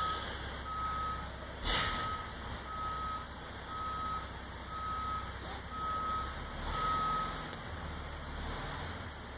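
Backup alarm on logging equipment beeping steadily about once a second, with a low diesel engine rumble beneath; the beeping stops a little over two-thirds of the way through. A single sharp knock sounds about two seconds in.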